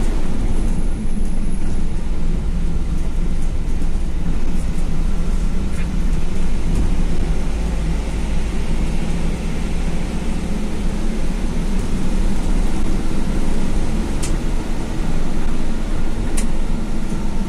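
A bus running along the road, a steady low rumble of engine and tyres as heard from inside the cabin, with two short ticks late on.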